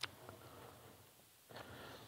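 Near silence: room tone, with one sharp click right at the start and a faint sound about a second and a half in.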